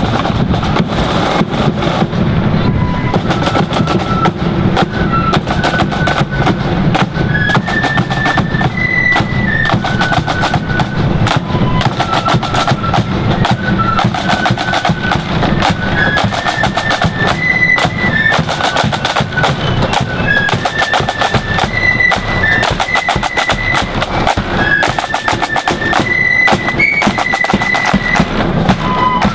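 Marching flute band playing: snare drums rattle in rapid strokes over a bass drum beat, and a flute melody in high stepping notes comes in a few seconds in and carries on over the drums.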